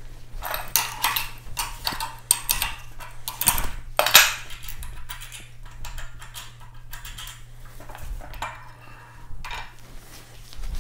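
Metal clinks and clanks as the nuts and clamp block of a steel barrel vise are undone and the rifle barrel is lifted out. The clinks are thickest over the first four seconds, with the loudest clank about four seconds in, and fewer come after.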